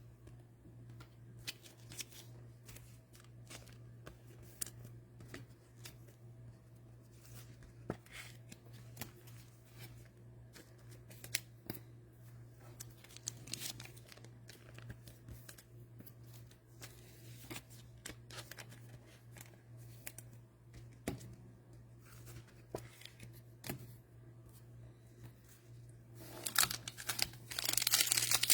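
Trading cards being handled, with scattered soft clicks and slides over a steady low hum. Near the end, a cello pack of football cards is torn open with loud crinkling of the plastic wrapper.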